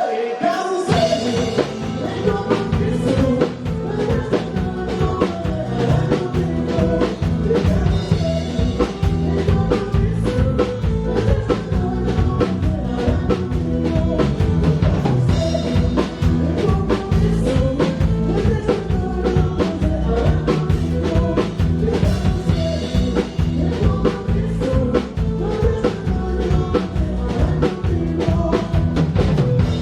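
Live band music heard from the stage: a song kicks in just after the start, with a drum kit keeping a steady beat under pitched instrument lines and some singing.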